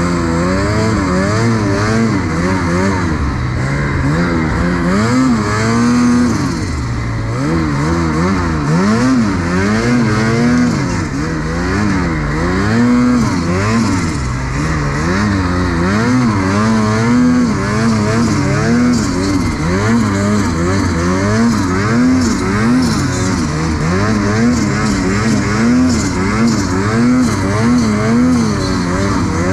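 Ski-Doo 850 two-stroke snowmobile engine running under throttle, its pitch rising and falling about once a second as the throttle is worked on and off. There is a short softer dip about six seconds in.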